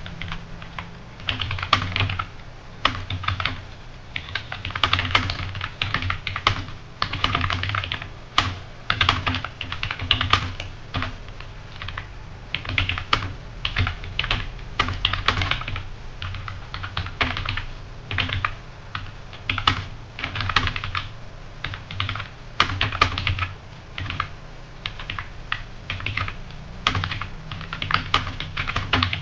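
Computer keyboard being typed on fast and continuously during a typing speed test, with dense, uneven key clicks and occasional louder keystrokes.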